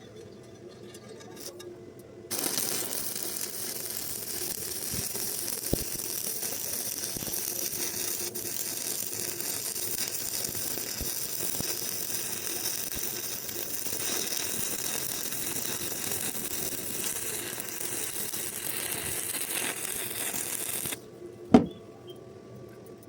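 Electric welding arc crackling steadily, starting a couple of seconds in and cutting off abruptly near the end. A single sharp knock follows.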